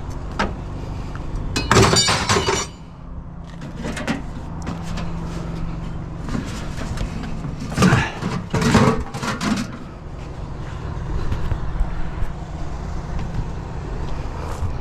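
Scrap metal pieces such as door hinges clattering as they are handled and tossed into a load, in two bursts of quick knocks: a short one about two seconds in and a longer one about eight seconds in, over a steady low rumble.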